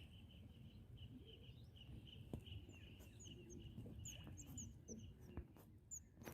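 Faint birdsong: a run of quick, repeated chirps with short, high falling chirps scattered through it, over low outdoor noise and a few sharp clicks.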